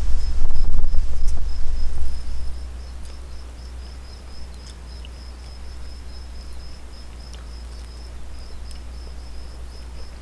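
Crickets chirping in a steady, high, pulsing rhythm over a low rumble that is loudest for the first two seconds or so. A few sharp clicks sound here and there.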